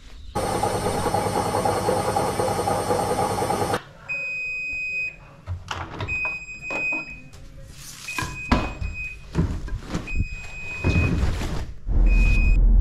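An airport bird-scaring loudspeaker sounds loudly for about three and a half seconds and cuts off. Then a Haier front-loading washing machine beeps its end-of-cycle signal, five long high beeps about two seconds apart, amid clicks and knocks as the door is opened and the laundry handled.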